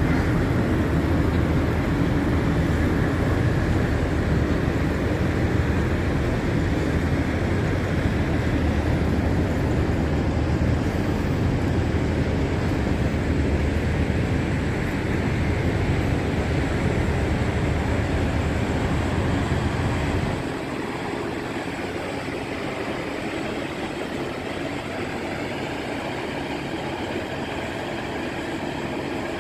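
Steady low rumble of vehicle engines, which drops to a quieter, thinner background hum about twenty seconds in.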